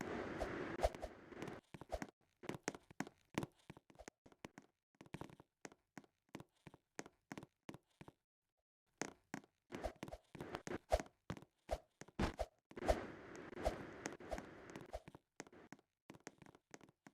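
A fast, irregular run of short clicks and taps, stopping for about a second midway. Soft hiss with faint tones rises under them near the start and again about two-thirds in.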